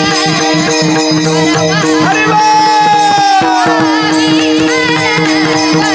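Varkari kirtan music: a woman's voice holds one long sung note about two seconds in, sliding down in pitch as it ends, over a steady drone and pakhawaj drumming.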